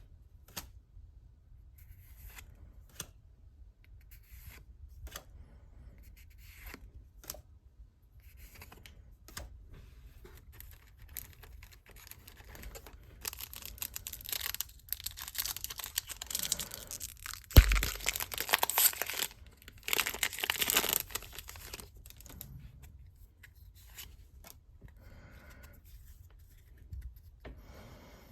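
Pokémon Trading Card Game Celebrations packaging being handled and torn open. Light scattered clicks and rustles give way, about halfway through, to several seconds of loud tearing and crinkling of wrapping, with one sharp knock in the middle of it.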